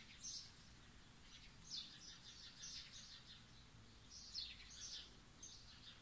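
Small birds chirping faintly, short high chirps coming every second or so.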